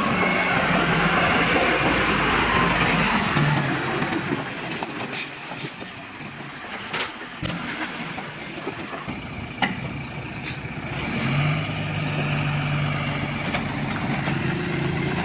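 Heavy truck's diesel engine running as the truck is driven slowly into position, loud and hard-working for the first few seconds, easing off, then settling into a steady drone from about eleven seconds in, with a couple of sharp clicks in between.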